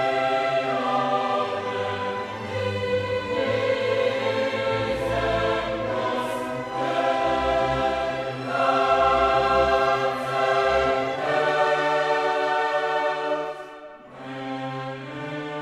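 Choral music with orchestra: a choir singing sustained chords over an orchestral accompaniment, growing quieter for a moment near the end.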